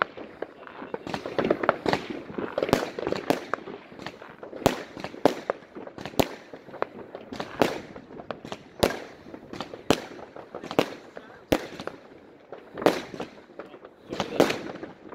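Many fireworks and firecrackers going off in the distance across a town: sharp bangs at irregular spacing, about one a second, over a continuous crackle and rumble of others.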